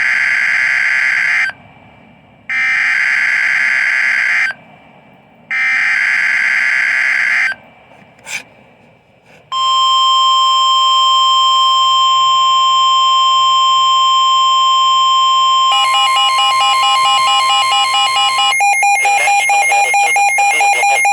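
NOAA Weather Radio emergency alert: three bursts of SAME digital header data about a second apart, then a long steady weather-radio warning tone. Near the end a second, fluttering two-tone EAS attention signal comes in, and it carries on after the steady tone cuts off.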